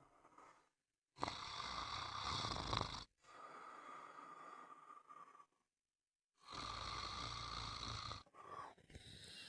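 Sleeper snoring: two loud, rattling snores about two seconds each, with a low rumble, each followed by a quieter breath out. Short gaps of dead silence fall between them.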